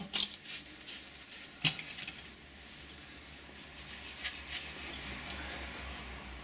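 A rag rubbing and wiping around the oil filler on a compressor's metal crankcase, cleaning it with brake and clutch cleaner so no dirt gets into the new oil. There is a sharp click under two seconds in.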